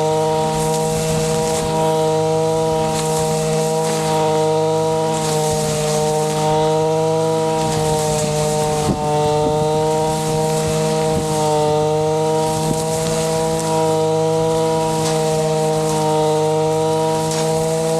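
Two-stroke engine of a Zenoah BCZ315 brush cutter running steadily at high speed as its blade cuts grass. The pitch sags slightly under load about halfway through, and there are faint scattered ticks from the cutting.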